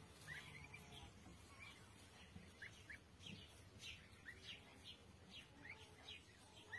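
Goslings peeping under their brooding mother goose: faint, short, high peeps, about two a second.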